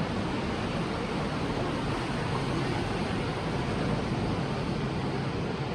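Steady rushing noise with no clear tone or rhythm, like wind or surf.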